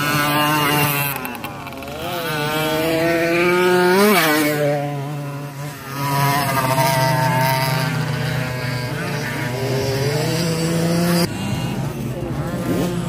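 Small 50cc racing motorcycle engines running at high revs. The pitch rises and falls as the bikes pass and change gear. One passes close about four seconds in, its pitch climbing and then dropping sharply, and the sound changes abruptly about eleven seconds in.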